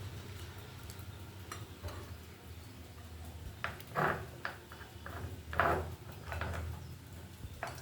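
A spoon clinking and knocking against a bowl in scattered short strikes while gram flour and water are mixed, over a steady low hum.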